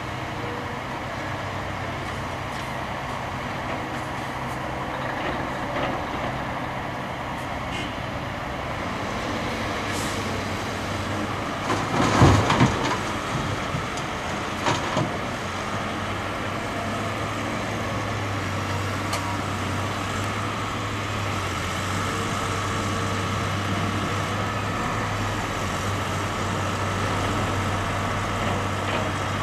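Diesel engines of a Cat excavator, a wheel loader and a dump truck running steadily. About twelve seconds in comes a loud burst of knocks, and a shorter pair follows a few seconds later, as earth from the excavator bucket lands in the dump truck's steel body.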